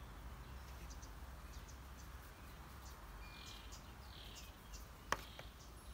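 Faint birds chirping in the background over a low steady hum, with one sharp click about five seconds in.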